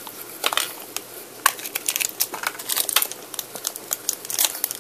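Thin plastic wrapping crinkling in irregular crackles as a small toy blind pack is handled and opened by hand.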